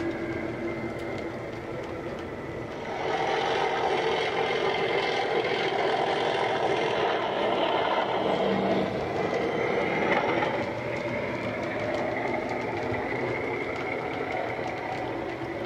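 Sound-fitted model Class 37 diesel: its DCC decoder plays the locomotive's engine running under power through a small onboard speaker, along with the model train running on the track. It gets louder about three seconds in and stays steady after that.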